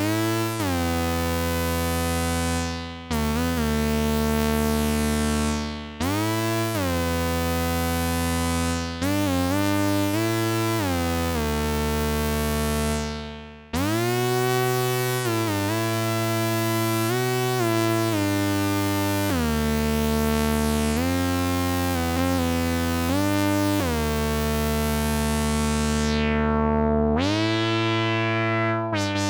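Behringer Odyssey analog synthesizer playing a low, buzzy sustained patch, its notes gliding in pitch from one to the next every second or two. The brightness repeatedly sweeps down and opens up again.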